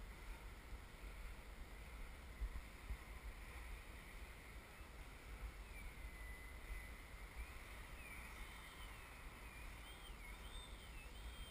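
Radio-controlled model airplane's motor whining faintly overhead, its pitch wavering up and down through the second half as the plane manoeuvres. Low wind rumble on the microphone underneath.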